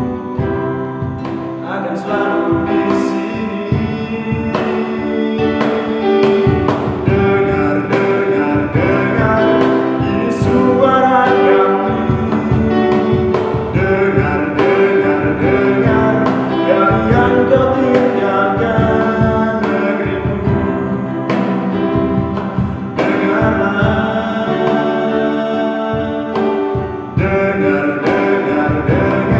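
A man sings with an acoustic guitar, keyboard and cajon, a small live band; the cajon marks a steady beat under the voice and chords.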